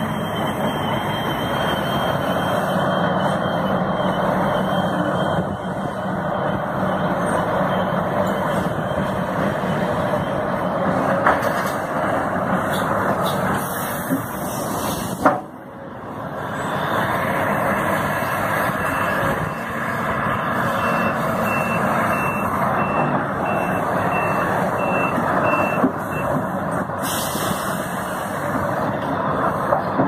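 Large Volvo crawler excavator's diesel engine and hydraulics running under load while it digs and loads a dump truck. A reversing alarm beeps steadily through the second half.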